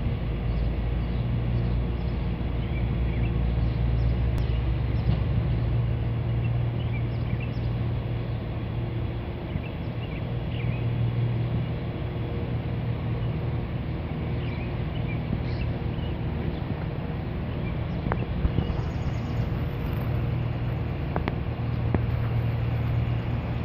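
Steady low engine rumble from an approaching sternwheel riverboat, with birds chirping now and then.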